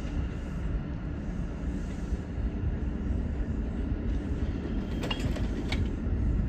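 New York City subway train pulling away over the tracks with a steady low rumble. About five seconds in comes a brief cluster of wheel clicks with a short squeal.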